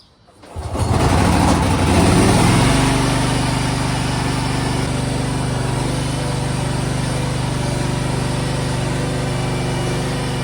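Small Briggs & Stratton Vanguard engine on a mini skid steer starting up about half a second in. It runs loudest for a couple of seconds, then settles into a steady run.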